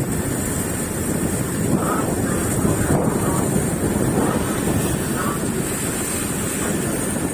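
Fishing boat's engine running steadily underway, with wind buffeting the microphone.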